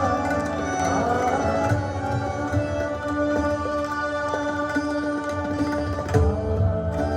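Instrumental background music: sustained melodic tones over repeated low drum strokes, with a change in the music about six seconds in.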